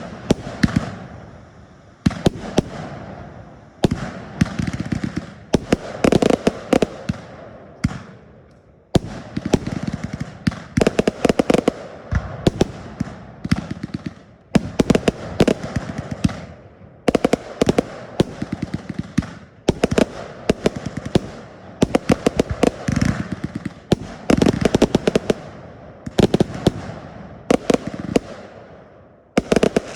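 Fireworks going off in a display: a run of volleys, each a quick cluster of sharp bangs and cracks, about every two to three seconds, each dying away with an echoing tail.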